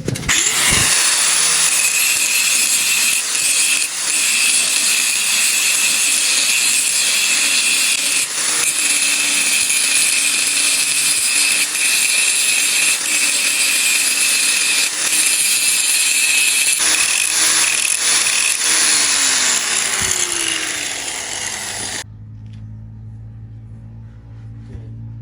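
Angle grinder grinding a steel weld, a loud steady whine with rasping grit. Near the end the whine slides down in pitch and cuts off, and background music follows for the last few seconds.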